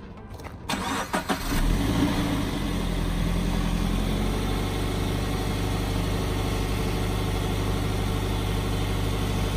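Scion FR-S's 2.0-litre flat-four boxer engine starting about a second and a half in, flaring up briefly, then settling into a steady idle. A few light clicks come just before it starts.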